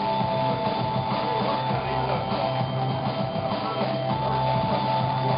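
Rock music with guitar and drums, playing steadily with held notes over a bass line.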